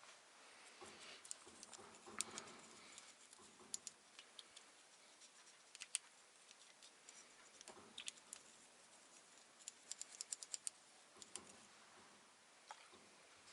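Faint, scattered clicks and ticks of small metal parts being handled as a hydraulic valve lifter is taken apart, with a quick run of clicks about ten seconds in.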